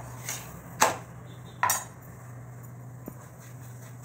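Cooking utensils clattering against metal cookware, a spatula and a ghee brush handled at an iron tawa and a small steel bowl: a few sharp knocks, the loudest about a second in and a double knock shortly after, over a steady low hum.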